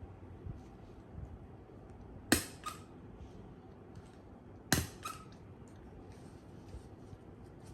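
Two sharp clicks about two and a half seconds apart, each followed quickly by a softer second click, over a low steady background hum.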